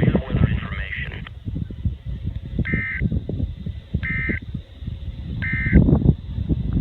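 NOAA Weather Radio broadcast: the synthesized announcer's voice ends about a second in, then three short, shrill buzzing data bursts sound about 1.4 s apart. These are the SAME end-of-message code that closes the tornado watch alert. Low, uneven background noise runs underneath.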